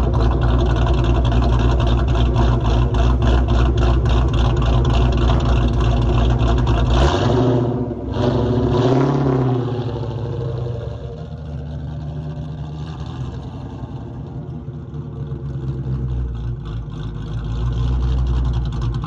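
Supercharged, cammed 2001 Ford Mustang Bullitt V8 running at idle with a steady pulse, revved once about seven seconds in with the pitch rising and falling, then settling to a quieter idle that swells again near the end.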